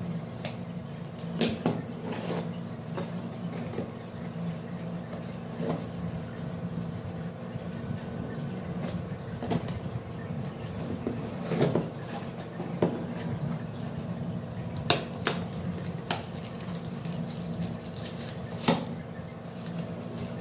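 A cardboard courier box being opened and handled by hand: scattered sharp knocks, taps and scrapes of cardboard and packing, a few louder than the rest, over a steady low hum.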